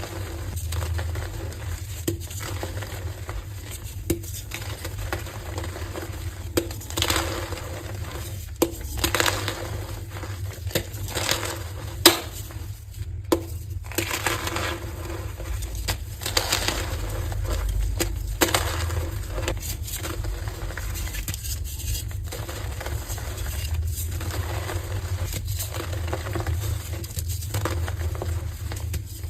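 Heart-shaped blocks of coloured gym chalk being crushed and crumbled, giving irregular soft crunches, with one sharp crack about twelve seconds in. A steady low hum runs underneath.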